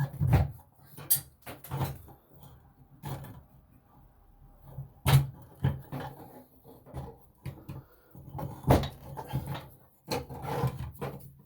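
Irregular knocks and clunks of hands and tools working an old bathroom sink faucet loose, with a few sharper hits about a second, three, five and nine seconds in.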